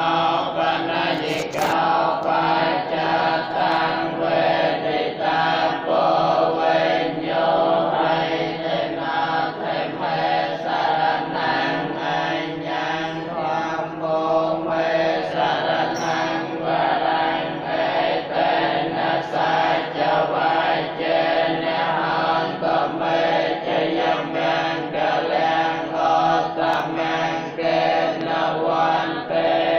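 Theravada Buddhist monks chanting together in a steady, rhythmic recitation on a few held pitches.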